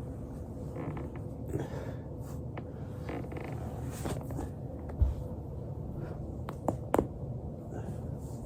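Body joints cracking and popping under a foam roller: scattered short cracks, a dull thump about halfway through and two sharp pops close together near the end, over a steady low hum.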